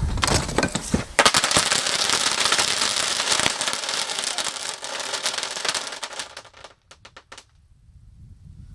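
A string of firecrackers going off: rapid, dense popping for about five seconds, thinning to a few last pops and stopping about seven and a half seconds in.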